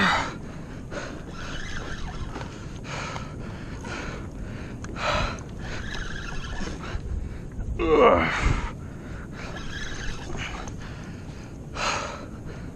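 An angler's strained gasps and grunts of effort while fighting a large fish on a jigging rod, several of them, the loudest about eight seconds in, over a steady background hiss.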